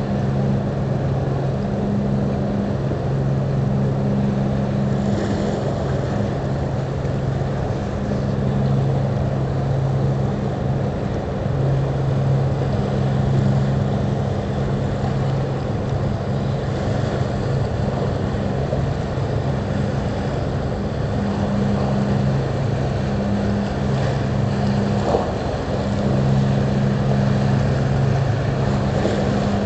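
Low, steady drone of a passing bulk carrier's and its escort tug's engines, two hum tones swelling and fading every few seconds over a rumbling wash of wind and water.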